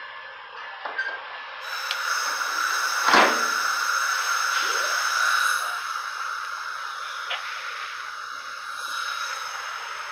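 Standing passenger train letting out a steady hiss of air that starts about two seconds in and eases after about five seconds. A single sharp bang comes about three seconds in.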